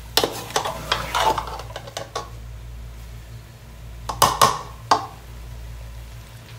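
Metal slotted spatula scraping and stirring okra curry in an aluminium pot for about two seconds, then a few sharp knocks of the spatula against the pot about four seconds in.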